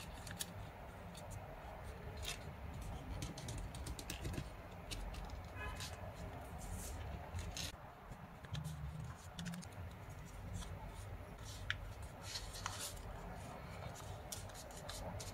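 Origami paper being folded and creased by hand: irregular crisp crinkles and rustles of the paper sheet.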